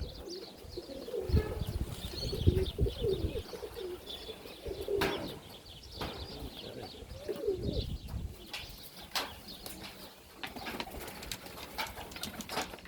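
Domestic highflyer pigeons cooing in repeated low phrases, loudest in the first few seconds and again about seven seconds in, with scattered sharp clicks and taps, thickest near the end.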